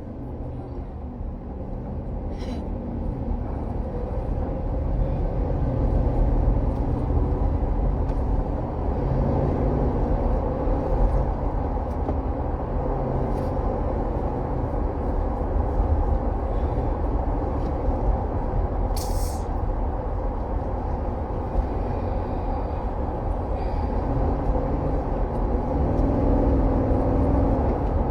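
Car engine and road rumble heard inside the cabin as the car pulls away from a traffic light and drives on, building over the first several seconds and then running steadily. A brief click about nineteen seconds in.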